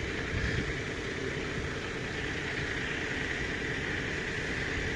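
Vehicle engines idling steadily, a continuous low hum with hiss and no distinct events.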